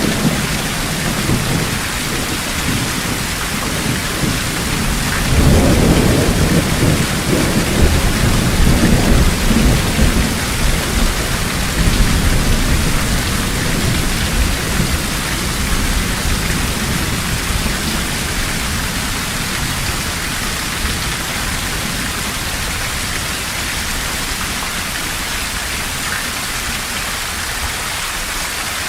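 Heavy rain falling steadily in a thunderstorm, with a long roll of thunder starting about five seconds in and rumbling for several seconds before fading back under the rain.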